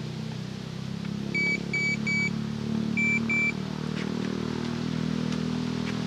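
Electronic fishing bite alarm giving three short, high beeps and then two more, set off by handling the rod on its rest. Beneath them is the steady low drone of a utility buggy's engine.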